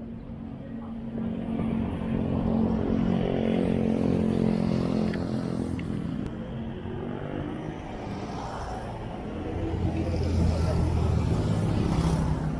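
Street traffic: the engines of two vehicles pass one after the other, each swelling and then fading. The second, lower-pitched one is loudest near the end.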